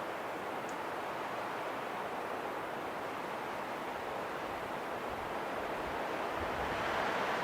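Steady rushing wind, swelling slightly louder near the end.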